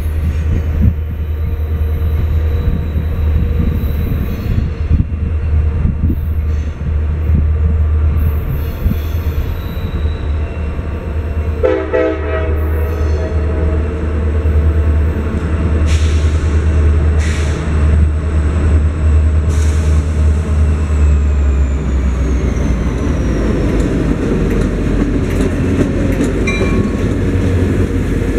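CSX local freight train, an EMD GP40-2 diesel locomotive with a road slug, approaching with a steady low rumble. Its horn sounds once, about twelve seconds in, for a couple of seconds. The locomotives pass close near the end.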